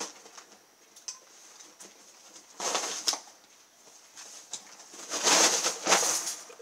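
Large cardboard shipping box being cut open and handled: small ticks of the blade, a short scraping rustle of cardboard about two and a half seconds in, then a longer, louder scrape and rustle of cardboard near the end as the box is pulled up.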